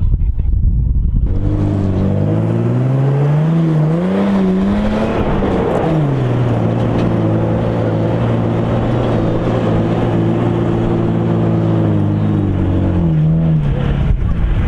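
A vehicle engine comes in about a second in, revs up for a few seconds, drops back to a steady run, and rises briefly again near the end.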